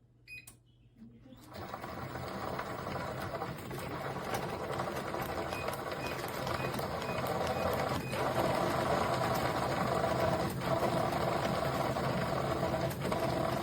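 SupeRun walking pad treadmill beeping as it is started, then its motor and belt starting up and running with a steady whir that grows louder over the first several seconds, with a few faint beeps along the way.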